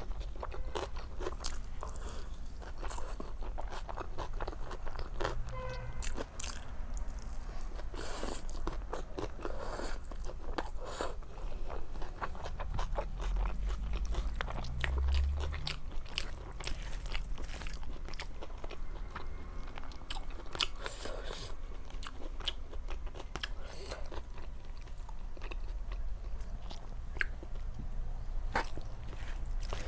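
A person eating close to the microphone: continuous irregular chewing and biting, with many crunchy, wet clicks from the mouth.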